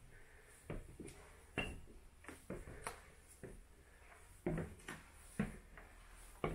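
Footsteps climbing wooden stairs and crossing a wooden floor: uneven thuds, roughly one or two a second.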